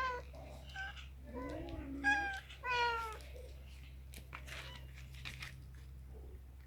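Kittens meowing: several short meows in the first three seconds, the last and loudest a longer falling meow, then only faint small clicks.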